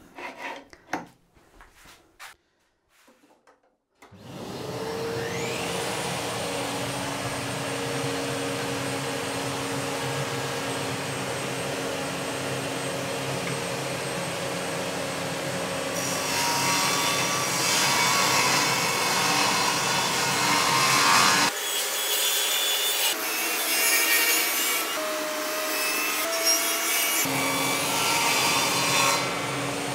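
Bosch GTS 10 XC table saw started up: a few handling clicks, then about four seconds in the motor spins up with a rising whine and runs steadily. From about sixteen seconds on, the blade cuts through wooden boards in several passes, louder and rougher, with short pauses between cuts.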